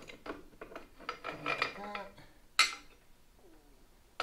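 Metal parts clinking and knocking as a motorcycle brake caliper assembly is worked into place by hand, with one sharp metallic knock a little over halfway through.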